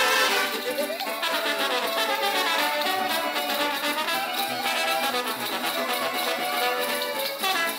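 Live band with trumpets and other brass playing a Kurpites dance tune, steady and continuous.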